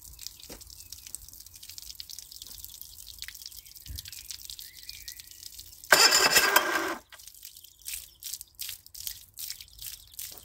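Water dripping in small irregular drops, then about six seconds in a loud harsh burst lasting about a second: the electric starter of a Yamaha 25 hp four-stroke outboard cranking the engine.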